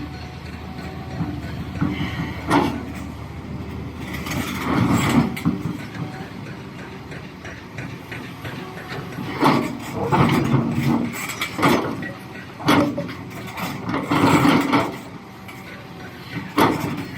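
Doosan DX390 excavator's diesel engine running, with repeated clunks and scrapes of rock against steel as it works boulders, several of them a second or so long.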